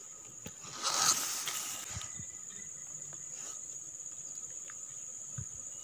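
Insects chirring: a steady, high-pitched buzz. About a second in there is a brief rustle.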